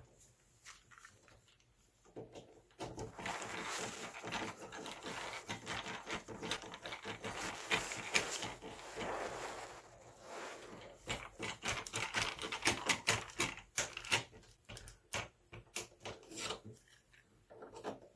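Gloved hands fitting a wire into the terminal of a 40 amp double-pole circuit breaker and tightening its lug screw. A few seconds of rubbing and scraping come first, then a run of irregular sharp clicks and ticks.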